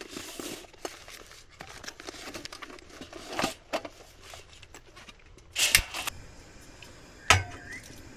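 Camping gear being handled: crinkling and rustling with scattered clicks and knocks, the loudest a burst of rustling near six seconds and a sharp knock a little past seven seconds.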